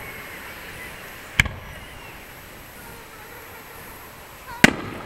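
Two aerial firework shells bursting, each a single sharp bang with a short tail, about three seconds apart.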